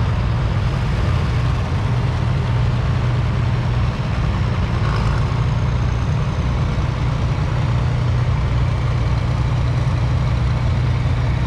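Farm vehicle engine idling steadily close by, a low, even hum.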